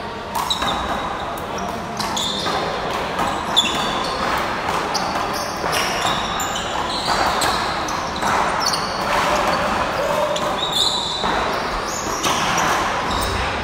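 A rubber handball struck by hand and slapping off the wall and floor in a rally, with a loud smack about three and a half seconds in. Short sneaker squeaks on the court floor come between the hits, and the hall gives the sound an echo.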